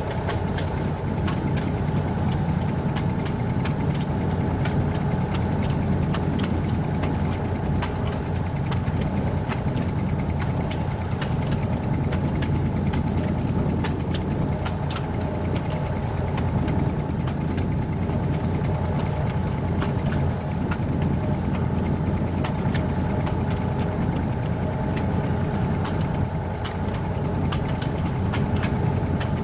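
Narrow-gauge diesel train under way: the diesel engine runs with a steady drone, overlaid by frequent irregular clicks and rattles from the wheels on the track and the rolling stock.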